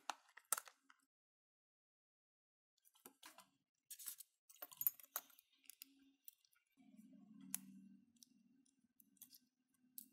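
Scattered light clicks and taps of small plastic phone parts being handled and set down on a rubber repair mat while a disassembled Nokia smartphone is taken apart.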